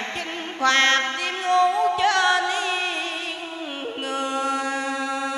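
A woman singing a cải lương (Vietnamese reformed-opera) passage into a microphone, drawing out long, wavering held notes with slides between them.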